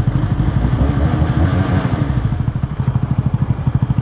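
Benelli 502C's 500 cc parallel-twin engine as the motorcycle slows and comes to a stop, settling about two seconds in into a steady, even idle.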